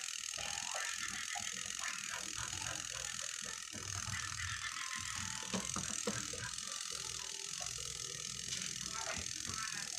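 Small mechanism clicking and ratcheting irregularly as it is worked by hand, many light clicks over a steady hiss.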